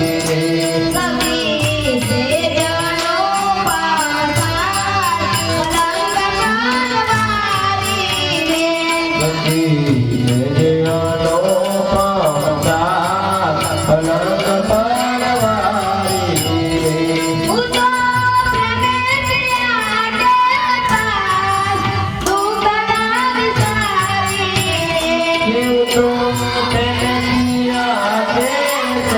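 A devotional bhajan being sung with instrumental accompaniment over a steady percussion beat.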